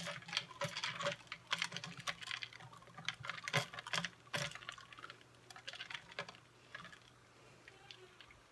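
Ice cubes clinking and rattling against the sides of a plastic tumbler of iced tea as it is stirred with a straw: irregular quick clicks, thinning out over the last few seconds.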